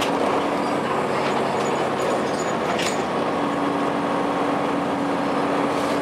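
A 2002 Blue Bird CS transit bus on the move, heard from inside the cabin: its Cummins ISC diesel and Allison automatic transmission run with road noise. The drone changes note about halfway through, and a few brief rattles sound.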